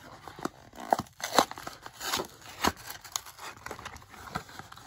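Card-game deck box packaging being torn open and crumpled by hand: a run of irregular crackles and short rips.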